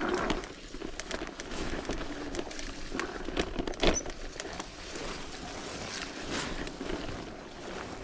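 Mountain bike rolling down a muddy trail: steady tyre noise with scattered clicks and rattling knocks from the bike, the sharpest knock about four seconds in.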